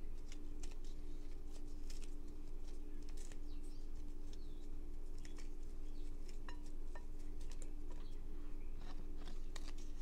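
Cooked turkey bacon torn by hand into pieces, with small irregular cracks and crackles as the crisp slices break apart. A steady low hum runs underneath.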